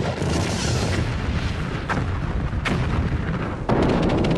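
A loud explosion-like rumble that starts abruptly and runs on, with sharp cracks and crackling through it.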